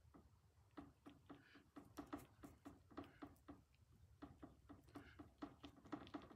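Faint rapid ticking of a paintbrush dabbing and mixing oil paint on a palette, about three or four taps a second, starting up about a second in.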